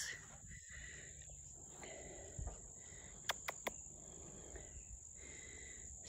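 Faint, steady high-pitched chirring of insects in the pasture, with three quick clicks a little past the middle.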